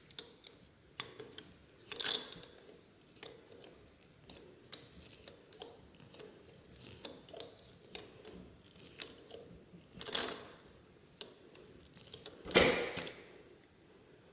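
Small hand tools from a tyre puncture repair kit being handled and worked: scattered light clicks and knocks, with three louder scraping bursts about two, ten and twelve and a half seconds in.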